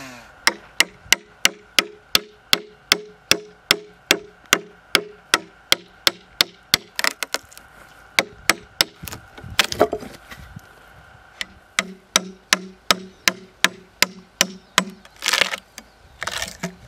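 Rapid blows of a hand tool on wood, about three a second, each a sharp knock with a short ringing tone. They come in two runs with a pause of about two seconds between, followed by two short, louder rasping sounds near the end.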